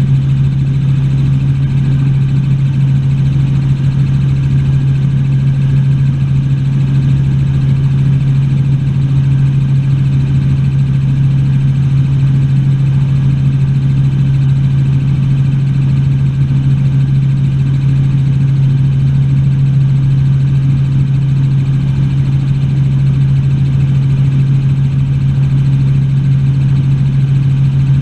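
Helicopter in steady flight: engine and rotor making a loud, even drone with a strong, unchanging low hum.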